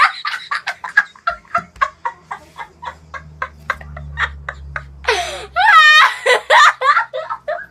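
A boy laughing hysterically in a rapid run of short, breathy giggles. About five seconds in it breaks into a loud, high-pitched squeal of laughter.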